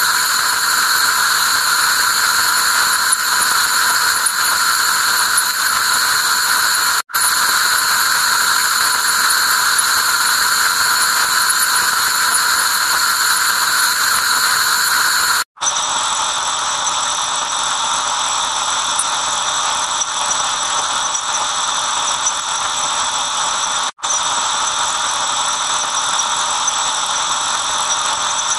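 Harsh, steady electronic noise drone with a few shrill ringing tones in it, cutting out for an instant about every eight seconds; after the second cut, about halfway through, it changes to a somewhat lower, duller version.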